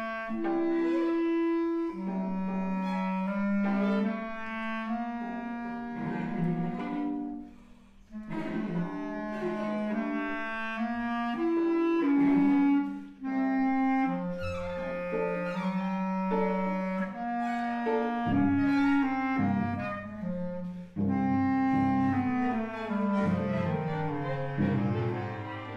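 Instrumental music: a melody of clear, held notes, which the tagger hears as clarinet, over lower sustained notes, with a brief drop about seven seconds in.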